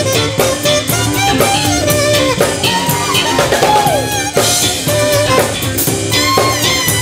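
Live funk band: a saxophone solos, its notes sliding and bending, over a steady drum-kit groove.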